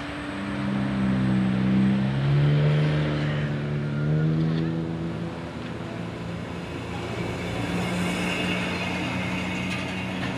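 Road vehicle's engine running close by, its note slowly rising and falling, loudest about two seconds in. A higher whine comes in near the end.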